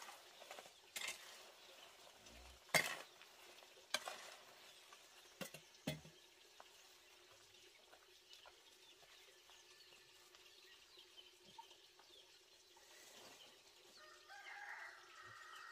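A long-handled hoe scraping and knocking dry leaves and wood scraps into a woven bamboo basket. There are a handful of sharp scrapes and knocks over the first six seconds, then only faint outdoor ambience.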